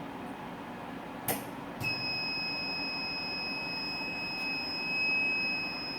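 A/C refrigerant charging machine giving one steady high beep of about five seconds, starting about two seconds in after a click, over a low hiss: the signal that the 550 g refrigerant charge is complete.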